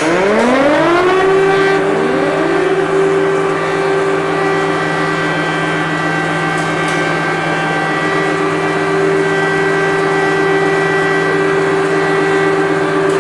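Civil defence siren winding up, its pitch rising over the first second. A second rising tone joins about two seconds in, then it holds one loud, steady wail.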